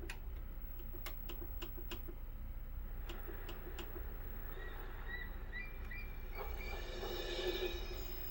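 DVD soundtrack playing through a CRT TV's built-in speaker: a few sharp clicks in the first four seconds, then a run of musical tones that swells about six seconds in.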